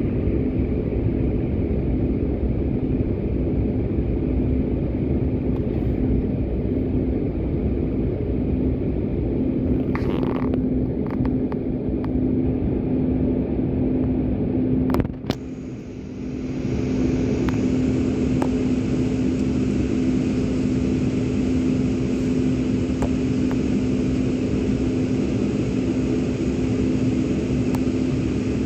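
Cabin noise of a jet airliner taxiing: a steady engine rumble with a constant hum. About halfway through it dips briefly with a couple of clicks, and then a brighter hiss joins in.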